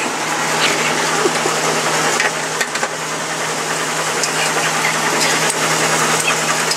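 Washing machine running: a steady low hum under an even rushing noise, with a few light clicks.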